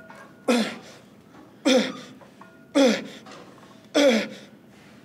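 A man's forceful grunts on close-grip barbell bench press reps: four of them about a second apart, each dropping in pitch, the sound of hard exhales as he drives the bar up.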